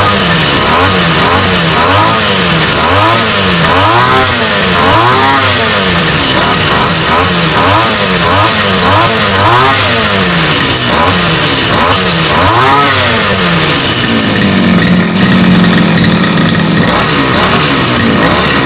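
Small grass-cutter (brush cutter) engine driving a propeller through a flexible shaft, revved up and down over and over, roughly once a second. Near the end it is held at a steady speed for a couple of seconds, then revved again.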